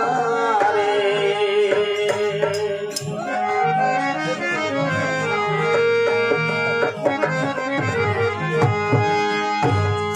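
Instrumental interlude of a Rajasthani folk bhajan: a harmonium plays the melody in long sustained notes over a steady dholak rhythm.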